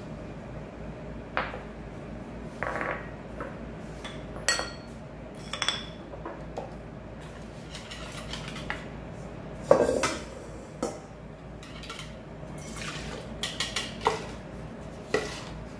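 Scattered clinks and knocks of small glass and ceramic bowls and utensils being handled on a counter, with a wire whisk in a ceramic bowl, the loudest knock about ten seconds in. A stainless steel mixer bowl knocks several times near the end.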